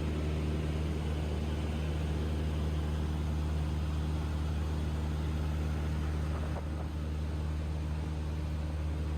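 An engine running steadily: a constant low drone with an even hum and a hiss over it, unchanging throughout.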